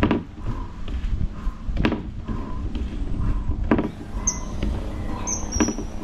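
Feet thudding onto a tarp over grass about every two seconds as each foot comes down from a standing knee raise, over a low wind rumble on the microphone. Short high bird chirps come in near the end.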